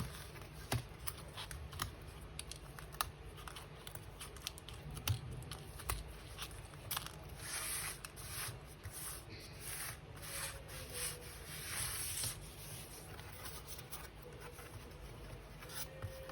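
Faint handling of paper craft pieces: scattered small clicks and taps, with several rustling, tearing-like bursts in the middle.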